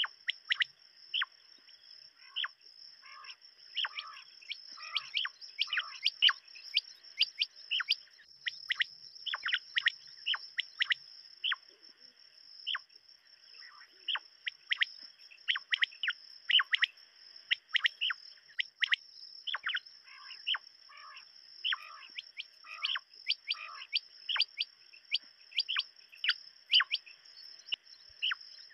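Common quail calling over and over: many short, sharp call notes, at times several a second. A steady high-pitched tone runs underneath.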